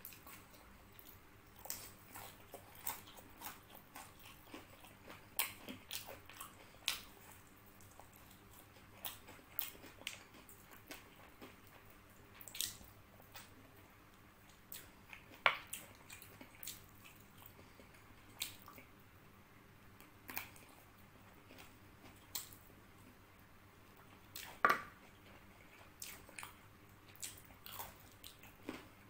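Close-miked eating sounds of a man biting and chewing fried chicken and rice, with irregular wet mouth clicks and lip smacks about once a second.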